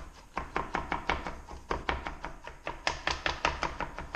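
Kitchen knife mincing garlic on a cutting board: rapid, even chopping taps, about five a second.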